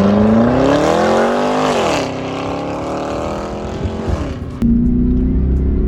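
A 2016 Chevy SS's 6.2-litre LS3 V8 accelerating, its pitch climbing for about two seconds until an upshift drops the revs, then pulling on at lower revs. Near the end the engine note changes abruptly to a steadier cruise.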